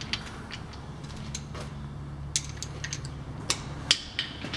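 Scattered sharp metallic clicks and clinks of hand tools and parts being worked on a Model A Ford transmission held in a bench vise, over a low steady hum.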